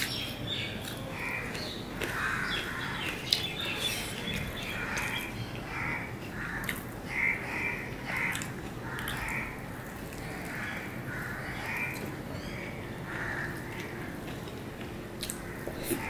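Close-up chewing and mouth smacking on a mouthful of mutton kacchi biryani, a wet smack about once a second, with a few light clicks from fingers picking rice on the plate.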